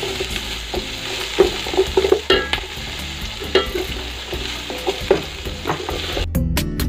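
Chopped onion, garlic and ginger sautéing in hot oil in a large aluminium pot, sizzling steadily while a wooden spatula stirs and scrapes the pot's bottom. Near the end the sizzling cuts off and music with a steady beat comes in.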